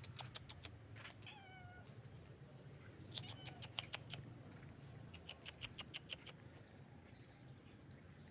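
Faint, short meow from a tabby stray cat about a second in, followed by quick clusters of sharp clicks around three to four and five to six seconds in.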